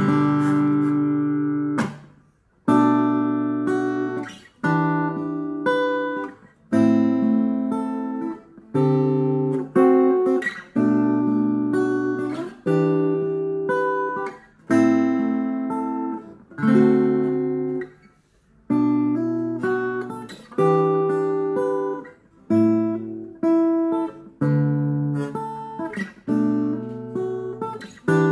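Acoustic-electric guitar played through the guitar input of an Aroma AG-15A 15-watt acoustic guitar amp with a 5-inch speaker. Picked and strummed chord phrases ring out and fade, starting again about every two seconds, with a short break a little over two seconds in.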